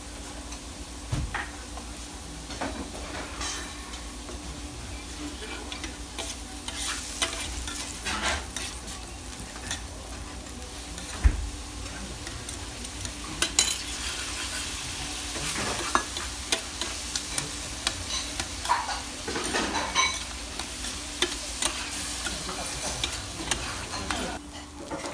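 Sechi-yaki, yakisoba fried in okonomiyaki style, sizzling steadily on a hot griddle, with metal spatulas repeatedly scraping and tapping the plate as the noodles are turned and worked.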